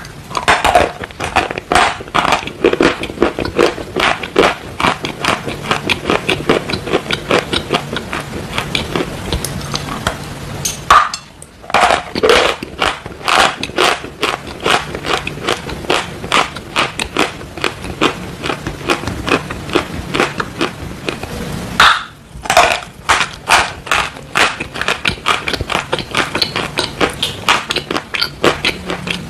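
Close-up chewing and crunching of chunks of chalk: crisp, brittle crunches several times a second, broken twice by short pauses.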